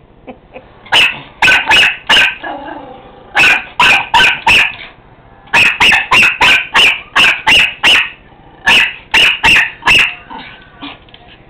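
Small dog, a miniature pinscher, barking sharply and very loudly: about two dozen quick barks in four bursts, the longest burst in the middle running to about ten barks.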